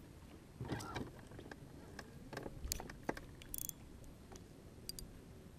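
Faint scattered knocks and clicks of fishing gear and the boat being handled, over a low steady rumble. A short high buzzing rattle comes about three and a half seconds in.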